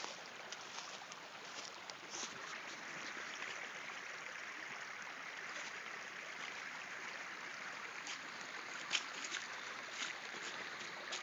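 A small stream running with a steady rushing hiss. Scattered rustles and crackles of dry leaves and brush come through it, the sharpest about nine seconds in.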